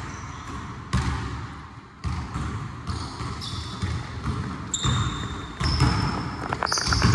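Basketball bouncing on a gym floor as it is dribbled, a sharp bang every second or so. From about halfway in, short high sneaker squeaks join it.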